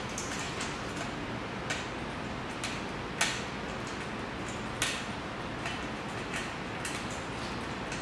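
Irregular light clicks and ticks of metal parts being fitted, as hands work a bolt into the metal frame of a rattan chair; the sharpest clicks come about three seconds and five seconds in, over a steady background hiss.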